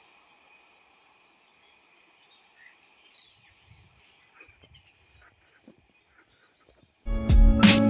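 Faint outdoor ambience: scattered bird chirps over a steady high hum, with a few small clicks. About seven seconds in, loud music with a steady beat cuts in abruptly.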